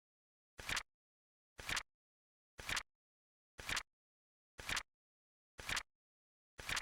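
Flip clock flip sound effect repeating once a second, seven short rustling flips of a card. Each flip starts softly and snaps to a louder peak, with silence between them.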